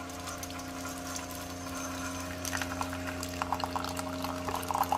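Keurig coffee maker brewing: its pump hums steadily while a thin stream of coffee pours into a ceramic mug, the splashing growing louder and more spattery from about halfway through.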